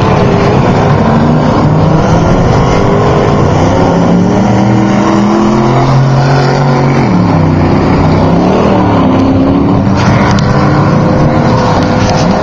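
Off-road race truck engine running hard, its pitch climbing, holding and dropping again and again with throttle and gear changes, with a marked drop about seven seconds in.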